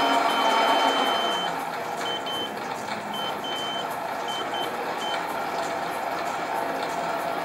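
Sieg bench lathe running steadily at about 250 rpm, with a motor whine, while a 7/16 in reamer works in a brass bearing held in a four-jaw chuck. A thin high-pitched tone comes and goes in short bits over the first five seconds, and the sound drops a little in level about a second and a half in.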